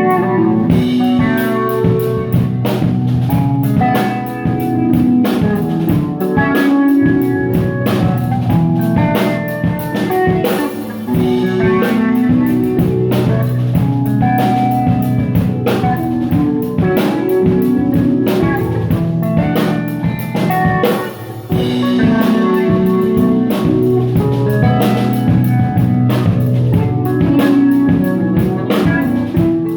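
A live band playing at a sound check, with a drum kit and guitar. There is a brief drop in the music about two-thirds of the way through.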